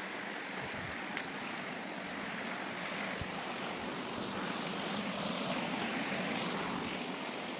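Steady rushing of a waterfall, a constant noise of falling water that swells slightly in the middle.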